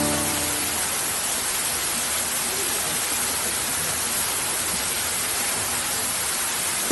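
Steady, even rush of falling water, unbroken throughout, with the tail of background music fading out in the first moment.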